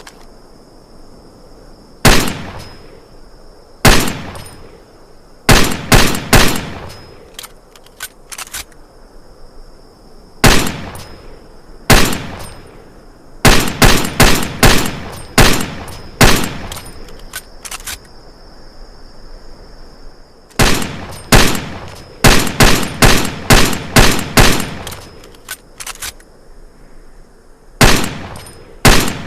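IMI Desert Eagle pistol firing: single shots a second or more apart and quick strings of shots, each a sharp crack with a short echoing tail. A faint steady high-pitched tone runs beneath.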